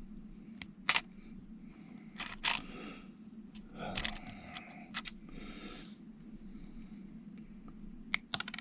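Small metal clicks and taps of tweezers handling lock pins and setting them into a Kwikset lock cylinder plug, irregular, with a quick run of clicks near the end. A faint steady hum lies underneath.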